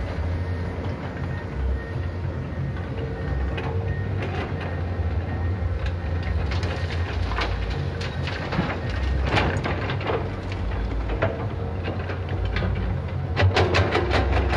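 Komatsu PC200 hydraulic excavator's diesel engine running steadily as it works, with scattered knocks and clatter of stone, and a louder burst of clattering near the end as a bucketload of sand and rocks drops into the steel bed of a dump truck.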